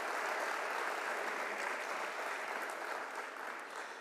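Audience applauding with many hands clapping, tapering off near the end.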